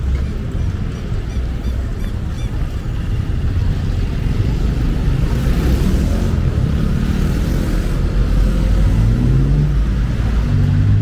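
Motor vehicle engine running close by over a steady low traffic rumble, its pitch rising near the end as it revs.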